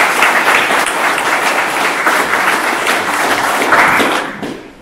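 Audience applauding, which dies away near the end.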